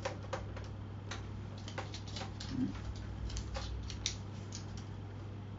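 Scattered faint clicks and small handling noises, as of a pen and notepad being handled, over a steady low hum.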